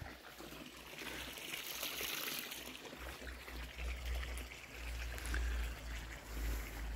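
Wind buffeting the microphone: a low rumble that comes and goes in gusts from about three seconds in, over a steady rushing hiss.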